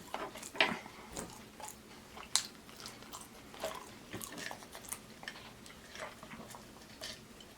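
Soft, sporadic mouth clicks and lip smacks of a person chewing close to the microphone.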